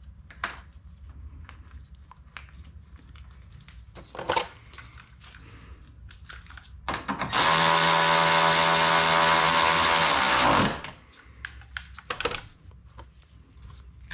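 Milwaukee cordless electric ratchet running at a steady pitch for about three and a half seconds, driving in a fastener on the lower front bumper trim, then stopping. Before it, a few light knocks and clicks of plastic trim being handled.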